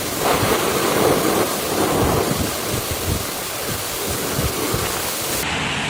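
Heavy thunderstorm rain pouring down in a dense, steady hiss, with a rumble of thunder swelling in the first second or so. Near the end the rain sound turns duller.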